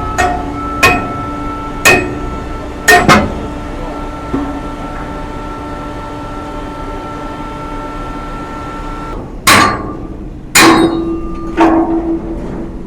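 A hammer striking steel parts, the metal ringing on after each blow. There are about five blows in the first three seconds, then a pause while the ringing dies away, then four more blows near the end.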